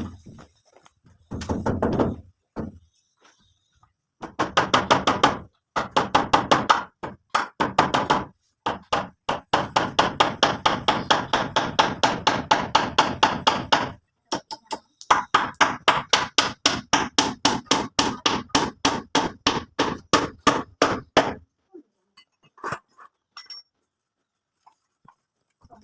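Rapid repeated blows of a hand tool striking a hard surface, about four to five a second, in long runs broken by short pauses. The blows stop a little after 20 seconds in.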